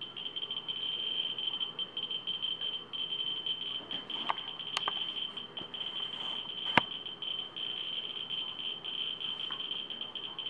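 Ludlum Model 3 survey meter's audio speaker sounding a continuous high buzz, its clicks run together by the very high count rate from a uraninite specimen beside its pancake Geiger probe. A few sharp knocks come in the middle, the loudest a bit before seven seconds in, as the specimen's tray is handled.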